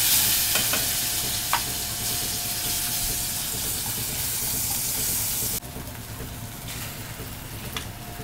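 Green masala paste of ginger, garlic, green chilli and coriander sizzling as it roasts in hot oil in a steel kadhai, stirred with metal tongs, with a few clicks of metal on the pan. The sizzle drops off abruptly about five and a half seconds in and goes on more softly.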